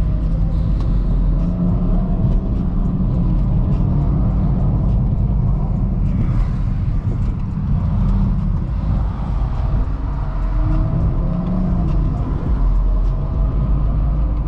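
In-cabin sound of a 2017 BMW X4 xDrive35i being driven: a steady low rumble from its turbocharged straight-six engine and the road.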